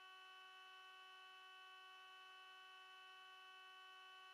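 Faint, steady electronic hum with a stack of overtones and no speech: a broken audio feed in which the talk has dropped out and only the tone is left.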